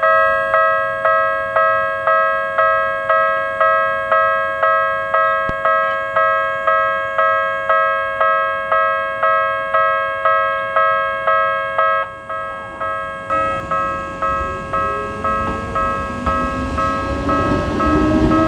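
Japanese level-crossing alarm of the Tokyu type, a multi-tone electronic bell struck about twice a second, cuts in suddenly. About twelve seconds in it dips and changes character. Near the end the rumble and rising whine of an approaching train build up beneath it.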